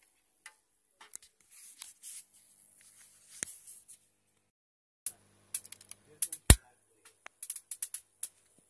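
Handling noise from connecting a VGA monitor cable to a desktop motherboard: scattered clicks, scrapes and rustles, with one sharp knock about two-thirds of the way through.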